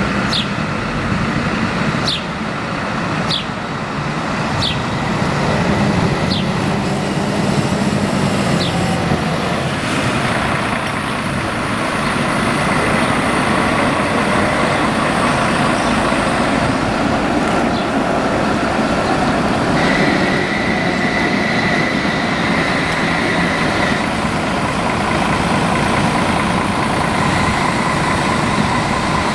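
Street traffic and a Tatra KT4D articulated tram running past on street track, with a steady rumble of wheels and motors. A high steady whine sounds for a few seconds past the middle, and short high falling chirps repeat about once a second through the first nine seconds.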